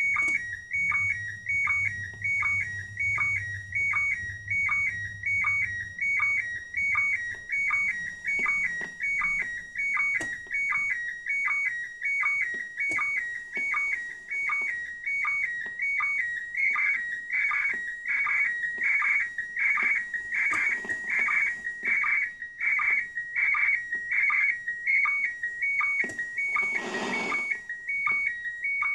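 Slow-scan television (SSTV) image signal from the ISS in PD180 mode, received by radio: a high whistling tone that steps rapidly up and down in pitch, broken by a short lower sync blip a little more than once a second. A brief rush of static washes over it near the end.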